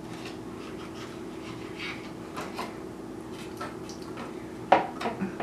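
A spoon scraping out a small cup of food, with light scrapes and clicks, then a sharp clack near the end followed by a few smaller knocks. A steady low hum runs underneath.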